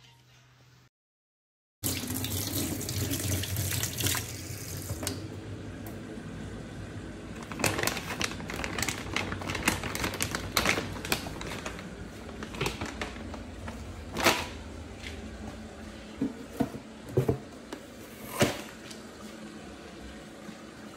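Water running from a tap into a sink, a steady rush that starts suddenly about two seconds in, with scattered knocks and clicks of things being handled.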